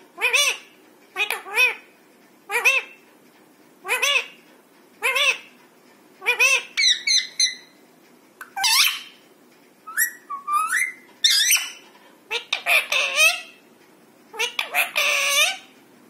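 Alexandrine parakeets calling: a run of harsh squawks about once a second with a rise-and-fall pitch, turning into more varied calls with rising glides and a longer, denser call near the end.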